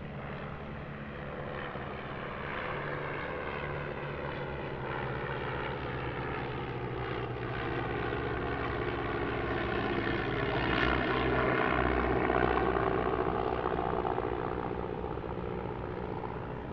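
Propeller engines of de Havilland Tiger Moth biplanes (Gipsy Major four-cylinder inline) droning in a flypast. The sound grows louder to a peak about two-thirds of the way through, with a slight shift in pitch as they pass, then fades.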